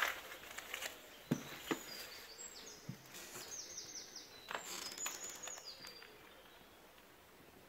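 Footsteps crunching and knocking on a rubble-strewn floor, while a small bird sings a quick series of short high chirps, each sliding down in pitch. Both stop about six seconds in.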